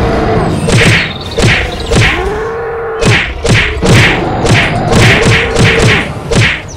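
Cartoon fight sound effects: a rapid, repeating run of whacks and thuds, several a second, with a low pitched tone rising and falling beneath them in arcs of about a second.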